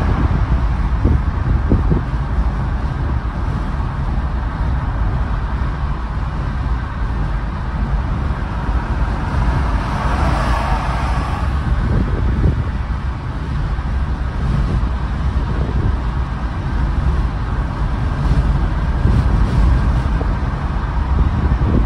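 Steady road and wind noise of a car driving at highway speed, mostly a low rumble, with a brief swell about ten seconds in.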